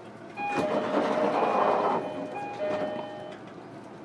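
JR Kyushu 305-series train's door chime, a two-note high-then-low 'ding-dong' sounding twice, over the hiss and rumble of the sliding passenger doors moving, as the doors are cycled during a door fault inspection.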